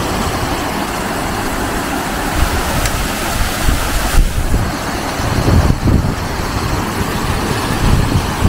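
Strong wind buffeting the microphone: a loud, steady rushing noise with uneven gusts in the low end.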